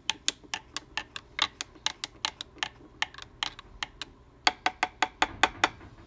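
A spoon clinking against the inside of a glass carafe while stirring steeped coffee grounds in hot water: rapid, uneven clinks, several a second, loudest in a burst near the end, then stopping.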